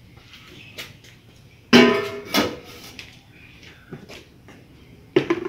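Large enamelled metal pot clanking as it is handled and set down: two sudden loud knocks with a ringing, pitched tone about two seconds in, and another knock near the end.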